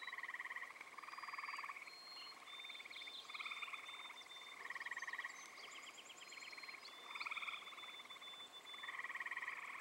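A chorus of frogs calling from a pond, several voices overlapping and repeating short, finely pulsed trills, about one every second, at two pitches. Thin high whistles sound faintly above them.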